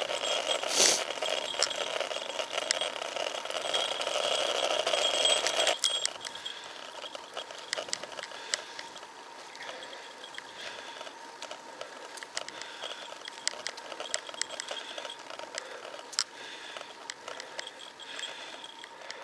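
A moving bicycle's rapid mechanical ticking and rattling. It is louder and denser for about the first six seconds, then drops off suddenly to a quieter run of scattered sharp clicks.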